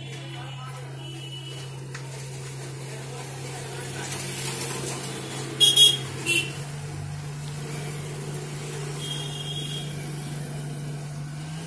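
Steady low hum of background noise, slightly rising in pitch near the end, with two brief sharp sounds about six seconds in.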